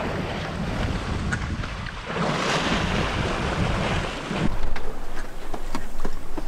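Wind buffeting the microphone over the rush of water along a sailboat's hull under way; a louder wash of water swells about two seconds in and breaks off about four and a half seconds in.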